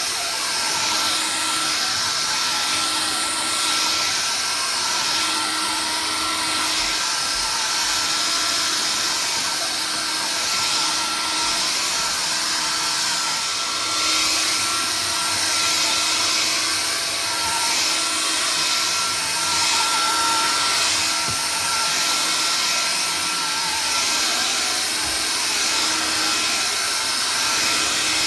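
Vax Air Cordless Lift cordless vacuum cleaner running steadily, with a constant high whine over the motor and airflow noise.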